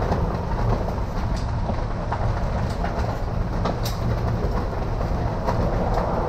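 Strong storm wind rumbling on the microphone, with scattered sharp ticks of hailstones striking.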